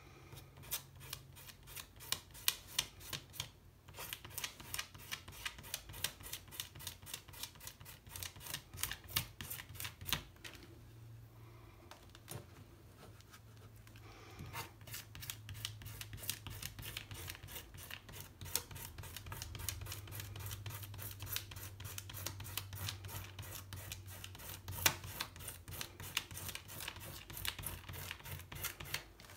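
Quick, scratchy strokes of a pastel stick on textured watercolour paper, several strokes a second, stopping for a few seconds about ten seconds in and then resuming more densely.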